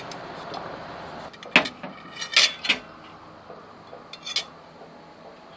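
A fork and a plate clinking: a handful of sharp clinks of cutlery on a dish, the loudest pair close together about two seconds in and one more near the end.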